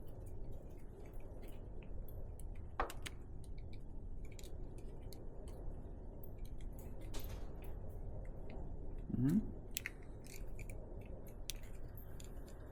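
Faint clicks and scraping of a plastic bulb socket being worked by hand as it is pushed in and twisted into a light housing, resisting the turn. A short vocal sound about nine seconds in.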